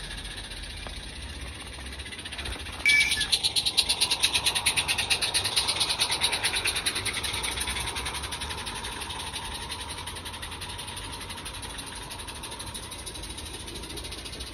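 Miniature live-steam garden-railway locomotive passing close, its exhaust beating in a rapid, even chuffing. The chuffing starts suddenly about three seconds in and fades away as its carriages roll by.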